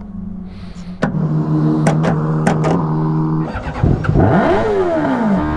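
Formula Predator's single-seater race car engine running: idling, then held at higher revs from about a second in, with a few sharp clicks around the middle. Near the end the revs swing up and back down.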